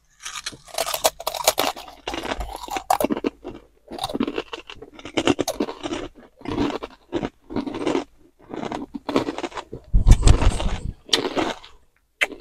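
Two people crunching and chewing Takis rolled corn tortilla chips close to clip-on microphones: irregular crunches with short pauses. A loud thump about ten seconds in.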